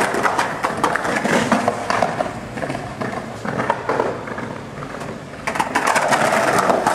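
Skateboard wheels rolling over paved ground, a steady rough rumble with many small clicks and knocks. It eases off about four and a half seconds in and picks up again near the end.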